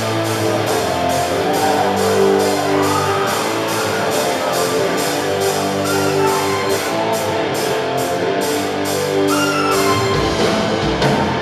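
Live rock band playing through a PA: electric guitars, drum kit with steady cymbal strokes, and keyboard. The band comes in suddenly at the start, and the low bass gets heavier near the end.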